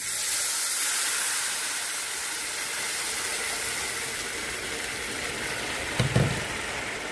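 Blended tomato liquid poured onto rice fried in oil in a hot pan, sizzling loudly the instant it hits and gradually easing into a steady hiss. A brief knock comes about six seconds in.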